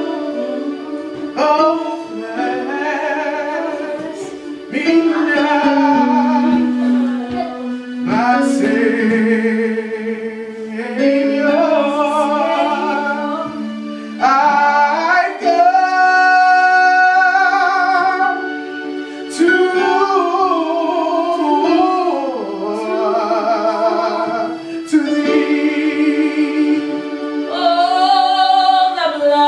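Gospel worship singing in long, drawn-out phrases of a few seconds each, with the notes bending and sliding.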